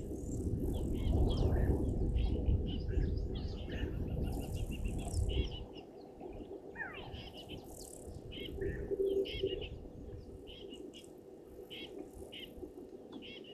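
Wild birds chirping and calling in short repeated notes, over a low rumbling noise that stops about five and a half seconds in.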